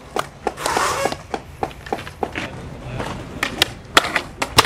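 Skateboards on concrete: a fast, uneven run of sharp clacks and knocks from boards popping and landing, with a brief gritty rolling noise about a second in and the loudest knocks about four seconds in and near the end.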